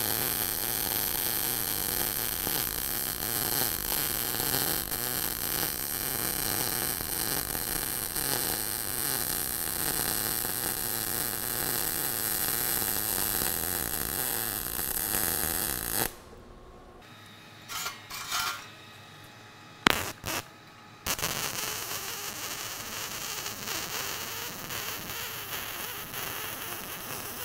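MIG welding arc running steadily as a bead is laid on eighth-inch steel panel seams. It stops about sixteen seconds in, a few faint knocks and one sharp click follow, and the arc strikes again about five seconds later and runs on.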